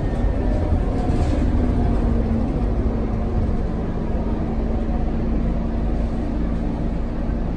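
Scania K230UB city bus heard from inside the passenger cabin while under way: a steady low rumble of its rear-mounted five-cylinder diesel and road noise, with a steady droning note that comes in about a second and a half in and holds.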